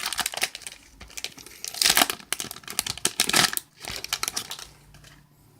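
Foil Pokémon booster pack wrapper being torn open and crinkled in the hands, with louder rips and rustles about two and three seconds in, then dying away near the end.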